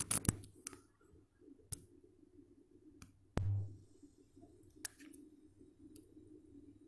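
Scattered sharp clicks and taps of a smartphone being handled and tapped, with one short low thump about three and a half seconds in, over a faint steady hum.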